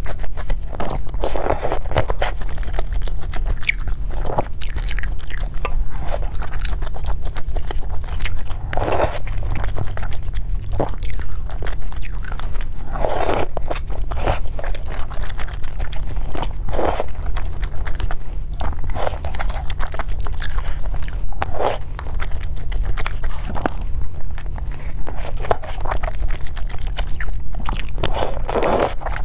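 Close-miked eating: biting and chewing food in short bursts every second or two, over a steady low hum.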